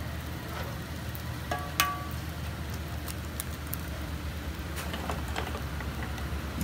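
A jianbing crepe cooks on a hot iron griddle over a steady low hum, with faint crackling. About two seconds in, an egg is knocked sharply against the metal griddle with a brief ring, followed by a few light clicks.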